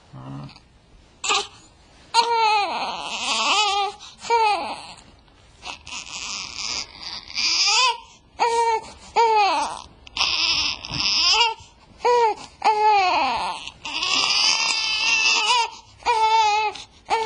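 Newborn baby crying: a string of loud wails, each about a second long, broken by short breaths, starting about a second in.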